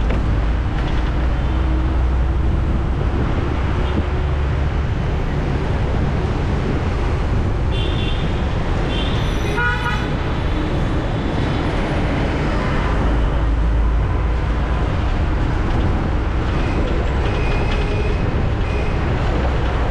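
Busy city road traffic, a dense steady rumble of engines, with several short vehicle horn toots; the strongest honk comes about halfway through.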